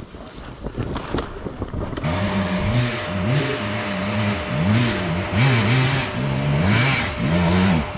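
KTM 250 XC-W two-stroke enduro motorcycle engine coming in about two seconds in and revving up and down again and again under the throttle, after a couple of seconds of light knocks.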